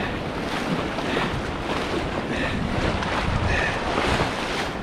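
Rushing river rapids churning and splashing around a canoe, with wind buffeting the microphone.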